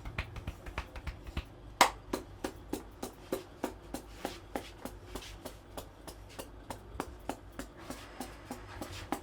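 Hands striking a head in rhythmic massage taps, about four a second, with one much louder strike about two seconds in.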